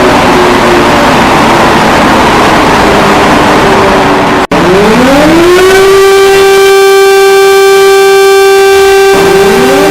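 Emergency alarm siren at full volume. A harsh, noisy, distorted stretch cuts off sharply about halfway through. A new siren tone then winds up in pitch and holds steady, and starts to wind up again near the end.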